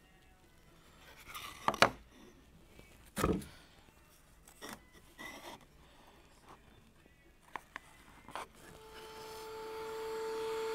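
Small maple panels being fitted together into a cube and taped: a few sharp wooden knocks and taps, the loudest a close pair about two seconds in, with hands rubbing on wood and tape. Near the end a router motor starts up, a steady whine growing louder.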